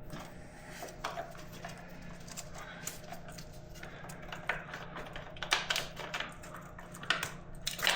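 Irregular clicks and knocks of hard parts being handled and worked loose around a motorcycle's battery compartment, busier in the second half.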